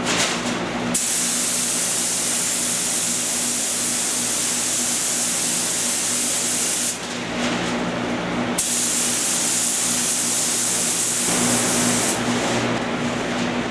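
Paint spray gun hissing as clear coat is sprayed, in two long passes: the hiss starts about a second in, stops about seven seconds in, resumes a moment later and stops again about twelve seconds in. A steady low hum runs underneath.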